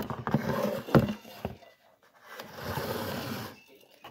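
Rustling and scraping from things being handled at a table, with a sharp knock about a second in, then a second stretch of rustling.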